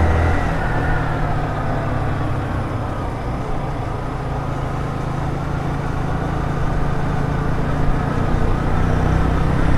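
Motorcycle engine running while riding, with wind and road noise. The engine note falls over the first few seconds and climbs again toward the end, as the bike eases off and then picks up speed.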